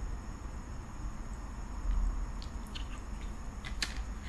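Swallowing as soda is drunk from a plastic bottle, then a few short crackles and clicks as the plastic bottle is handled near the end, over a steady low room hum.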